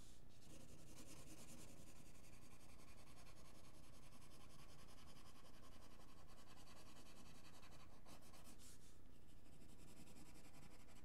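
Graphite pencil shading on drawing paper: a soft, steady scratching of strokes.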